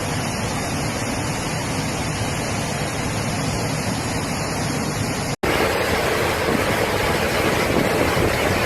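Steady rush of fast-flowing floodwater. It breaks off for an instant about five seconds in and comes back a little louder.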